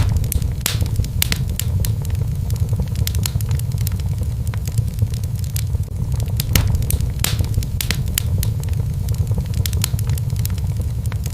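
Fireplace fire crackling, with many irregular sharp pops over a steady low rumble.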